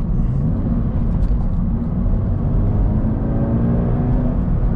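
Subaru BRZ's flat-four engine through its Borla stainless axle-back exhaust, heard from inside the cabin as the car accelerates in gear, revs climbing steadily. The climb breaks off near the end.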